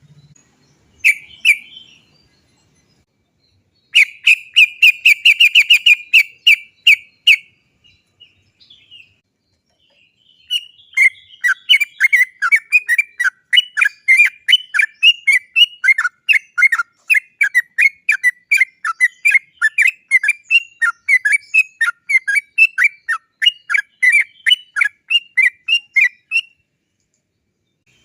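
Yellow-vented bulbul (trucukan) singing its chattering 'cok cok cok' song. A short call comes first, then a fast rattling run of notes for about three seconds, and after a pause a long rolling series of rapid repeated notes that lasts about sixteen seconds.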